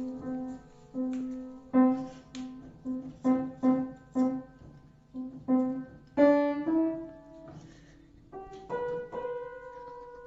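Piano playing a short, halting tune: one low note struck about a dozen times in uneven rhythm, then a few higher notes, ending on a held note.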